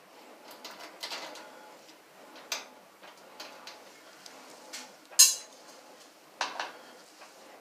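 Light metallic clicks and clinks of a hand tool and small hardware at a clothes dryer's electrical terminal block as the power-cord wires are unfastened. The sharp clicks come irregularly, the loudest about five seconds in.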